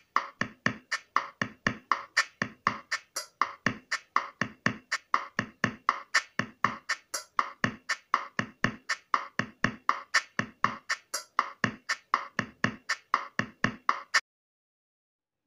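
Intro music made of a fast percussive beat, deep hits alternating with sharper higher ones at about three or four a second, which cuts off suddenly about a second before the end.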